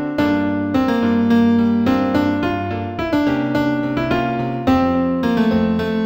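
Piano playing a slow new-age piece in F minor: a melody of struck notes over held low bass notes that change every second or two.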